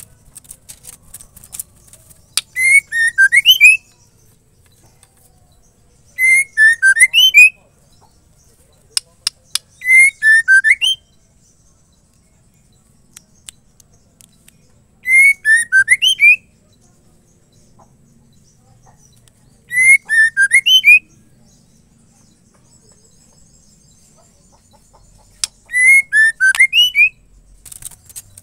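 Female white-rumped shama calling: six short phrases of quick, rising whistled notes, each about a second long and several seconds apart. This is the call a female gives to a male.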